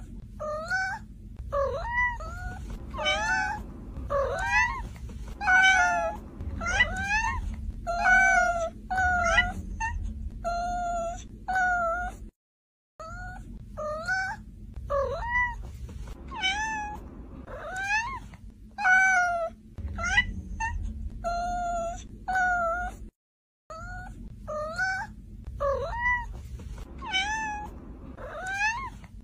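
Domestic cat meowing over and over: short meows about one a second, some rising and some falling in pitch. The meows break off twice into a moment of silence.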